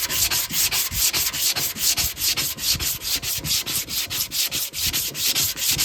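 Sandpaper rubbed by hand over cured body filler on a steel motorcycle gas tank, in quick, even back-and-forth strokes of about six a second: the filler being knocked down and shaped to a smooth finish before primer.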